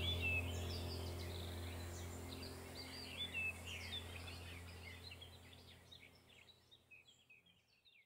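Birds chirping and twittering in quick, irregular calls over a low, steady music drone, the whole mix fading out toward silence by the end.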